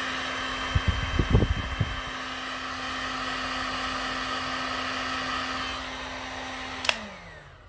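Heat gun running at full power, its fan motor whirring steadily while it heats a solder seal heat-shrink connector, with a few low knocks about a second in. Near the end it is switched off with a click and the motor winds down.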